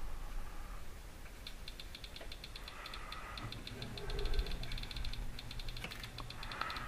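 iPod click wheel ticking rapidly as a thumb scrolls through the song list, in quick runs of faint clicks. A low steady washing-machine hum comes in underneath about halfway through.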